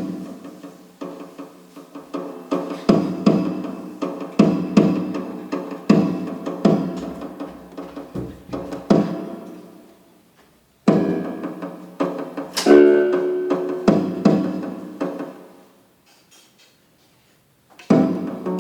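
Electronic oriental keyboard (organ) playing a melody: pitched notes with sharp attacks that die away. There is a brief break about ten seconds in, and the notes stop a couple of seconds before the end.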